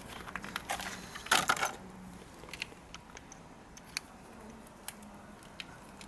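Light metallic clicks and rattles of brake pads being handled in a motorcycle front brake caliper, busiest in the first two seconds, then a few scattered ticks.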